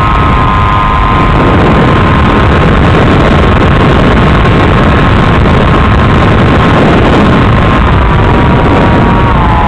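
Onboard audio from an FPV RC glider in flight: loud, steady rushing wind noise with a steady high whine that drops slightly in pitch near the end.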